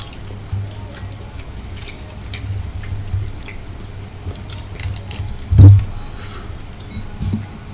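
Close-miked chewing of sautéed shrimp in sauce: scattered wet clicks and mouth smacks over a low rumble. One loud, low thump comes about five and a half seconds in.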